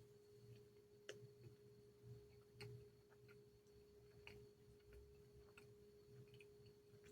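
Near silence: a faint steady hum-like tone, with a few soft clicks about a second, two and a half seconds and four seconds in.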